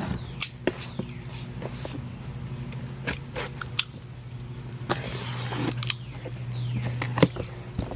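Box cutter slicing the packing tape on a cardboard box, with the box being handled: scattered clicks and scrapes and a longer tearing rasp about five seconds in. A steady low hum runs underneath.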